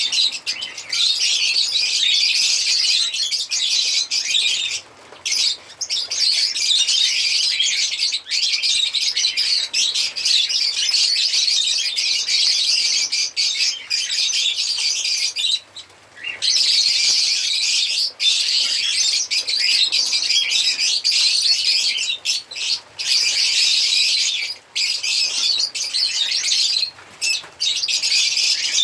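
Lovebirds chirping and chattering: a dense, high-pitched twittering that goes on almost without a break, with a few brief pauses, the longest about halfway through.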